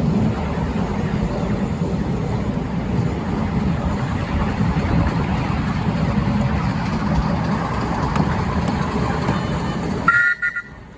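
Steady rumble and rattle of a miniature railway train running along the track, heard from a riding passenger coach. About ten seconds in, a brief high two-tone sound, after which the noise drops off sharply.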